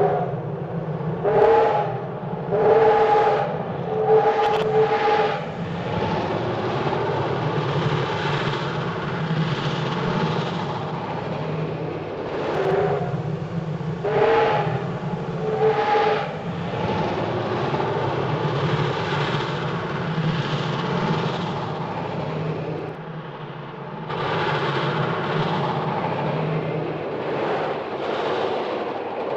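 Cartoon train sound effect: a train running with a steady low hum, its multi-tone whistle giving a string of short toots at the start and another group about halfway through.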